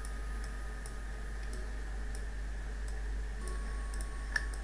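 Faint, irregular small clicks over a steady electrical hum and hiss from the recording microphone.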